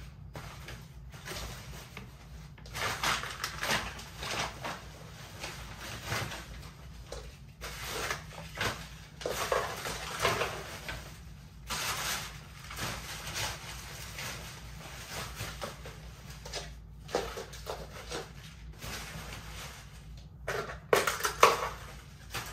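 Paper, cardboard and plastic packaging scraps rustling and crinkling as they are gathered up by hand and pushed into a bag, in irregular bursts that are loudest near the end.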